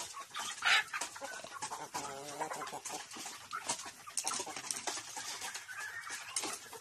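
A flock of chickens clucking, with a longer, wavering call about two seconds in and a short rising call near the end, over many short ticks.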